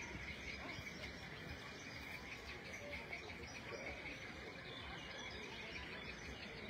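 Faint outdoor ambience: a steady background hiss with a continuous high-pitched chirring, of the kind birds and insects make in open grassland.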